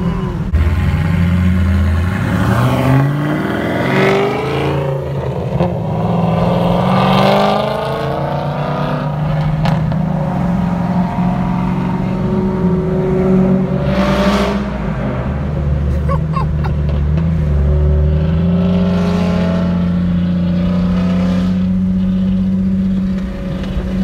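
Cammed Chevrolet Camaro SS V8 with a straight-pipe exhaust, heard from a car following it: the engine revs up hard with rising pitch over the first few seconds, then settles into a steady drone at cruising speed, with a brief rush of noise about halfway through.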